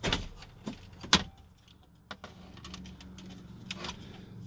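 Clunks and clicks of the truck's column shift lever being moved and the loose plastic dash trim bezel being handled, with two sharp knocks, the loudest about a second in. A low steady hum follows from about two seconds in.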